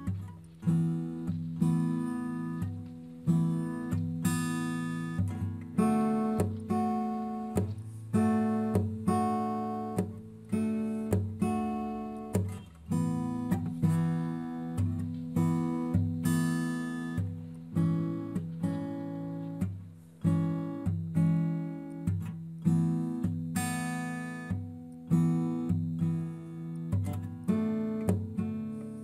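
Background acoustic guitar music: plucked and strummed chords in a steady rhythm, each one ringing and fading before the next.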